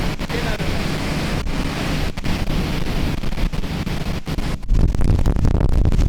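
Wind buffeting the microphone over a loud rush of water on an open boat ride on the river. The low rumble grows stronger about three quarters of the way through.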